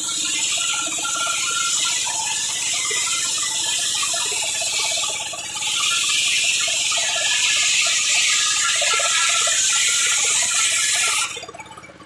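Belt-driven circular saw bench ripping a length of terap wood into planks: a loud, steady hiss of the blade cutting over the low hum of the engine driving it. The cutting eases briefly about five seconds in and stops suddenly near the end, leaving the saw running free.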